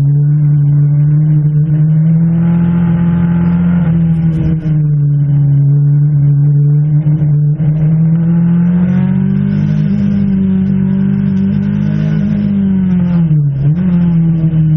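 Peugeot 205 Turbo 16 Evo 1 rally car's turbocharged four-cylinder engine pulling hard under load. Its note rises slowly in pitch, then drops sharply and climbs again near the end.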